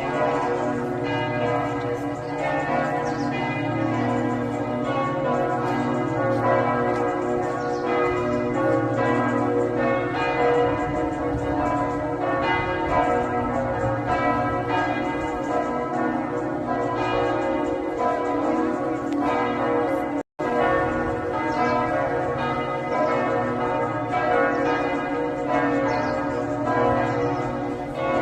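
Church bells of the Rosary Basilica at Lourdes ringing continuously, with strike after strike overlapping in a dense, sustained peal. The sound drops out for a split second about two-thirds of the way through.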